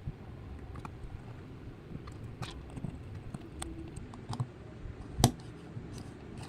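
Scattered small clicks and taps from small parts being handled, over a low steady rumble, with one sharper click a little over five seconds in.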